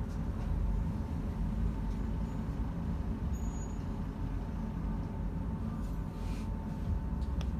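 Inside a CAF Urbos 3 tram: a steady low rumble from the car with a faint steady whine above it, and a couple of light clicks near the end.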